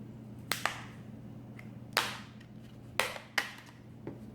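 Plastic back cover of a smartphone being pried off, its clips snapping loose in a few sharp clicks: a quick pair, then single snaps about a second apart.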